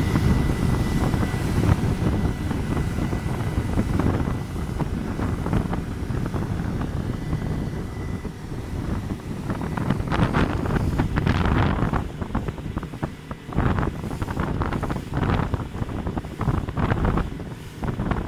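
Wind buffeting the microphone and rushing water from a rigid inflatable boat planing at speed, with its Yamaha 80 outboard running underneath. A thin steady whine runs through the first half. Stronger gusts come through in the second half.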